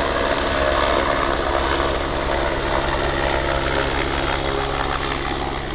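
Aircraft engine running with a steady drone.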